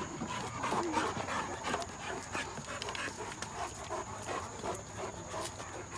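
Great Danes panting close by, a quick, irregular run of short breaths.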